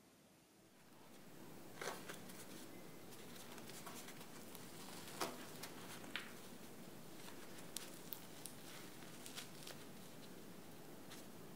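Soft pumpkin gugelhupf bread being torn apart by hand: faint soft tearing and rustling of the crumb, with scattered sharp crackles from the crust. It starts about a second and a half in.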